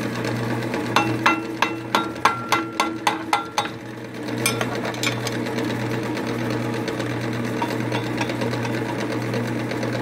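Drill press converted to a vertical wood lathe running steadily with a low motor hum. In the first few seconds about ten sharp, ringing clicks come at roughly three to four a second, then the steady running goes on alone.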